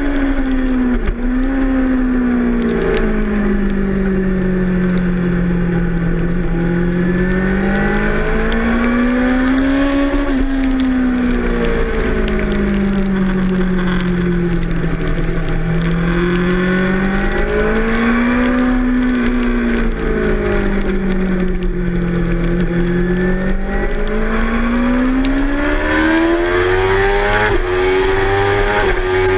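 2006 Suzuki GSX-R 600's inline-four engine heard onboard at race pace in the wet. Its pitch drops and climbs several times through a sequence of corners, then climbs steadily over the last few seconds as the bike accelerates hard.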